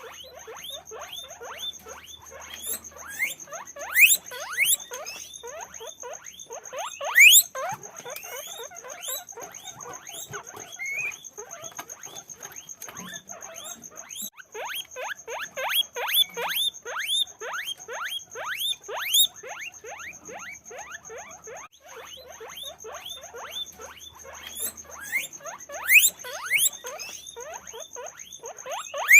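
Guinea pigs squeaking: a dense run of quick, short rising chirps, several a second, broken by a few loud rising whistles (wheeks).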